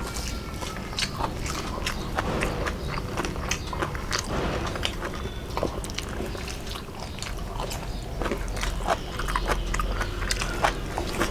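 Close-up eating sounds: a person chewing soft food of fish and rice, with frequent irregular wet mouth clicks and lip smacks.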